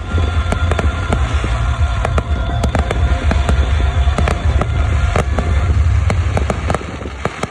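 Fireworks display: a rapid, irregular run of loud bangs and crackles over a continuous low rumble.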